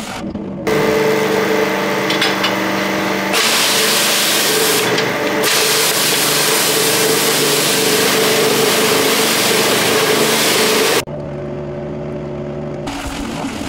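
Pressure washer running with its long lance blasting a water jet against a steam boiler's tube plate to knock off scale: a loud hiss of spray over a steady machine hum. It starts under a second in, grows to a fuller hiss about three seconds in, and cuts off suddenly near the end, leaving the hum.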